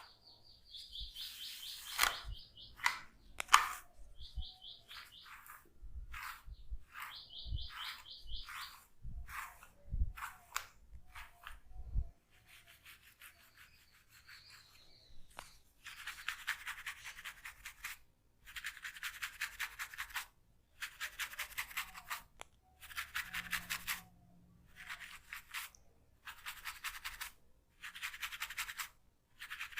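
Comb drawn through hair during a head massage: repeated strokes of fast, fine clicking as the teeth rake through, each stroke lasting about a second, in a steady rhythm over the second half. Before that come a series of dull thumps mixed with short runs of quick ticking.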